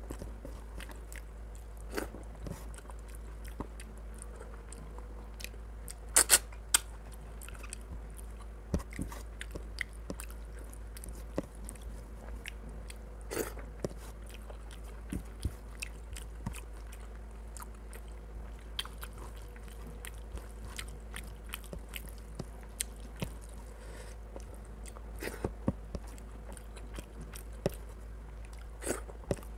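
Hand mixing rice and chicken curry on a stainless steel plate, with wet squishing and scattered sharp clicks of fingers on the metal, along with chewing sounds. The clicks come loudest about six seconds in and again around thirteen seconds, over a steady low hum.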